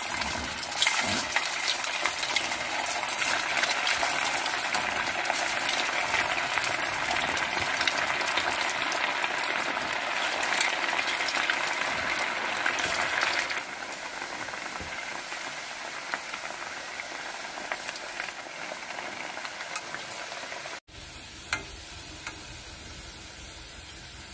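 Spinach vadas deep-frying in hot oil in a steel kadai, freshly dropped in: a dense, steady crackling sizzle that falls noticeably quieter about halfway through. After a sudden break near the end the sizzle carries on softly, with a light knock.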